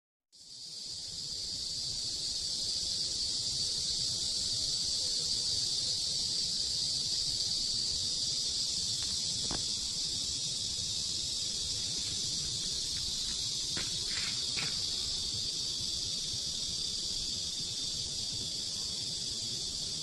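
Steady, dense chorus of cicadas singing, a continuous high-pitched drone, with a few faint ticks around the middle.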